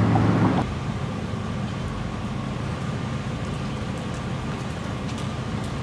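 A car engine idling, cut off sharply about half a second in, followed by a steady low rumble of vehicle and traffic noise with a faint steady whine.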